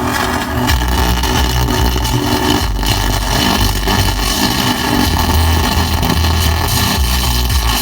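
Film soundtrack coming through a car multimedia system's speakers, buried under a loud hiss and a pulsing low rumble: the sound fault of the system.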